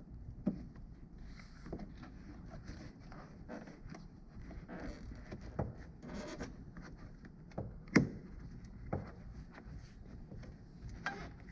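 Rubber door glass top run seal being pressed by hand into a truck door's window frame: rubbing of rubber against the frame with scattered light knocks. The sharpest knock comes about eight seconds in.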